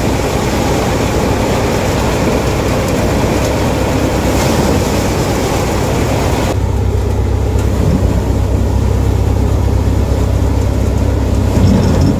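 Tractor-driven paddy thresher running loud and steady: a dense rushing clatter of the threshing drum with rice straw passing through. About halfway through the sound changes abruptly to a steadier low hum with less hiss.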